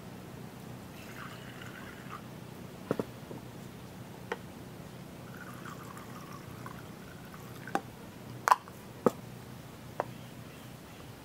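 Water poured from a ceramic jug into a clay pot: a short pour about a second in, then a longer one from about five to eight seconds in. Several sharp knocks of crockery being handled; the loudest two come close together near the end.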